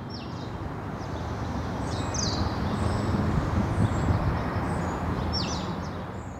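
Outdoor street ambience: a steady low rushing rumble that swells to its loudest mid-way and eases off near the end, with birds chirping in short high calls above it.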